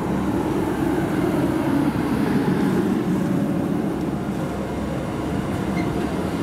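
Regional passenger train rolling slowly along the platform as it pulls into the station, a steady low rumble of wheels and running gear.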